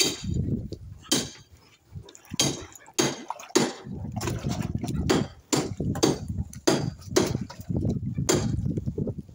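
Tarpon surging and striking at the water surface, making irregular sharp slaps and splashes over a low rumble, likely wind on the microphone.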